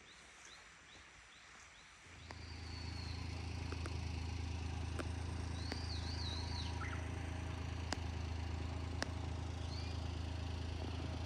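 A small bird chirping in a quick series of short falling notes, then a steady low hum sets in about two seconds in and runs on while birds keep calling over it, with a few faint clicks.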